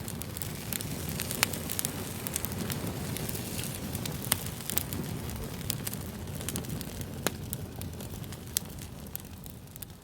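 Wood campfire burning, crackling with scattered sharp pops over a low steady rumble.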